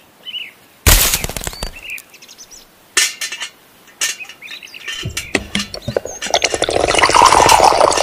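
Gravel and dry mix clinking and rattling in a small tin bucket, then pouring into the drum of a toy cement mixer, in a dense rising rattle over the last few seconds. Birds chirp faintly near the start.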